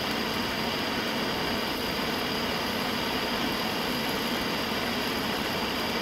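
Steady hiss of a gas torch flame, unchanging throughout.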